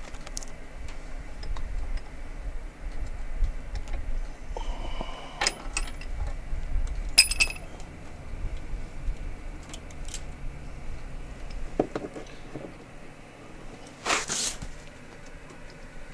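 Scattered metallic clinks and clicks of a socket wrench on an extension and the loose drain-plug parts (plug, spring, screen filter) being worked under an ATV's engine case during an oil drain, over low handling rumble; a few sharper clinks stand out, the loudest near the end.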